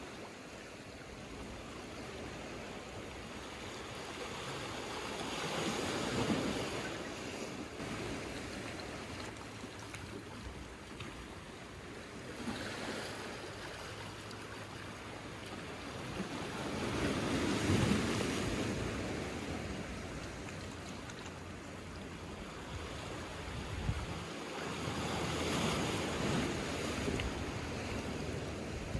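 Small sea waves washing in over rocks and a pebble shore, the surf swelling and fading in three surges about ten seconds apart.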